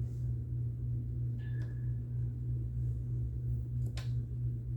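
Steady low hum throughout, with a few faint light clicks and a brief thin squeak from a marker drawing a mark on a steel plate.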